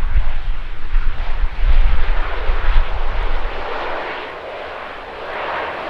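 De Havilland Canada Dash 8-400 turboprop airliner's engines and propellers running during its arrival, a steady rushing noise that dips about two-thirds of the way through and builds again. Gusty wind buffets the microphone, a heavy rumble that eases about halfway through.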